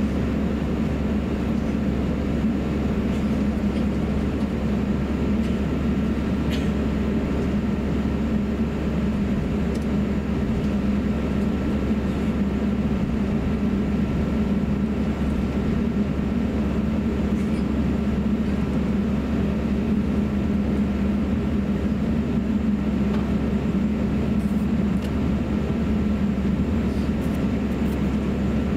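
Steady cabin noise of an Airbus A350-900 taxiing: a low hum and rumble from the engines near idle, with a faint steady high tone.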